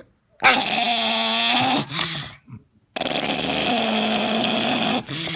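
Pug growling while eating broccoli: two long, drawn-out growls, each about one and a half to two seconds, with a wavering pitch.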